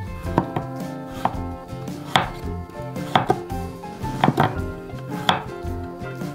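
Knife slicing a peeled potato on a wooden cutting board, the blade knocking sharply on the board about once a second, a few strokes in quick pairs.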